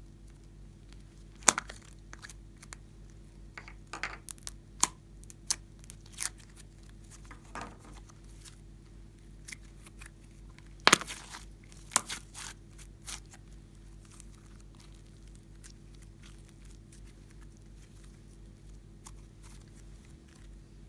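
Plastic slime capsule being opened with sharp clicks, the loudest about a second and a half in and again about eleven seconds in, then slime being pulled out and handled with soft sticky tearing and crackling.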